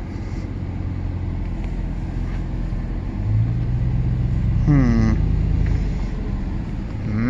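Dodge Ram Rumble Bee pickup's Hemi V8 running steadily at low speed, heard from inside the cab. Its note rises a little about three seconds in. A short voice sound comes about five seconds in.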